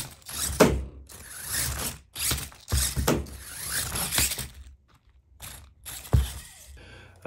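Mini RC monster truck with a Furitek Godzilla brushless motor and Rocketman transmission, driven in short throttle blips: a whirring gear drive that starts and stops, with a few sharp knocks, the loudest about half a second in and about six seconds in.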